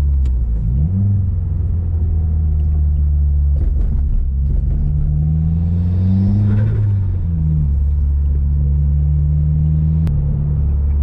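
Subaru WRX's turbocharged 2.0-litre flat-four engine pulling the car, heard from inside the cabin. The revs rise briefly about a second in, climb again from about four seconds in, and fall back a little after the midpoint.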